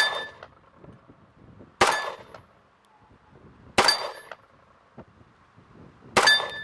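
A WWII-era 1911 .45 ACP pistol fired four times, slow aimed shots about two seconds apart, the first right at the start; each shot has a brief ring after it.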